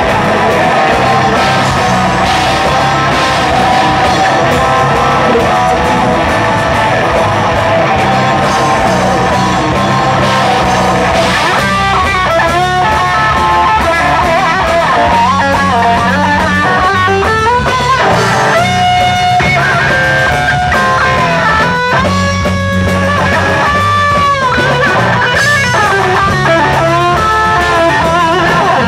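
Live black metal band, a three-piece of distorted electric guitar, bass guitar and drums, playing an instrumental passage. Dense chords at first; about twelve seconds in, a guitar lead with bending, sliding notes comes in over the steady bass and drums.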